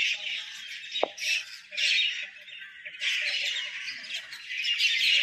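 Dense chorus of many birds chirping and squawking in trees, with a brief lull in the middle.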